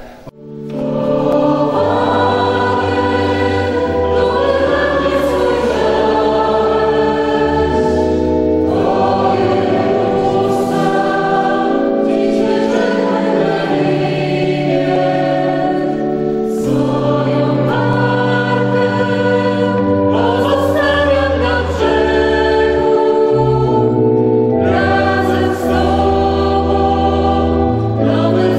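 Church choir singing a slow hymn in held chords, with organ bass notes sustained beneath; the music comes in about a second in.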